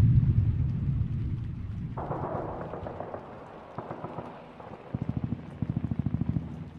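A deep rumble dies away over the first couple of seconds. About two seconds in a crackling hiss starts suddenly, and near the end there is a fast, low fluttering pulse.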